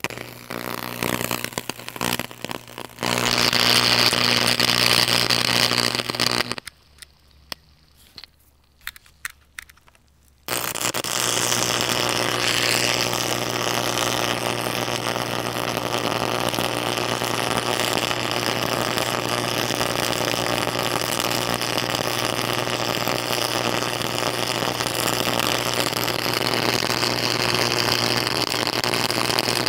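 Electric arc in a homemade arc furnace melting rock salt, buzzing and crackling over a strong mains hum. It sputters unevenly at first. About seven seconds in it dies to near quiet with a few scattered crackles, then strikes again a few seconds later and runs steadily.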